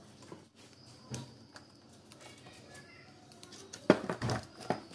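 Steel bench-vise parts and hand tools clinking and knocking against each other and the workbench: a few light clicks, then a burst of several sharp metal clanks about four seconds in as a screwdriver is set to a jaw plate.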